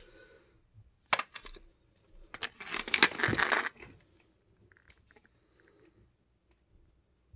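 Hard plastic cases of a shoe polisher and a toy meter being handled and set down on a hard floor: a sharp knock about a second in, then a longer stretch of scraping and clatter, then only faint small touches.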